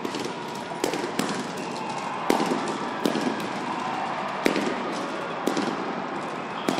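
A series of about eight sharp cracks or bangs at irregular intervals, each with a short echo, in a large hall.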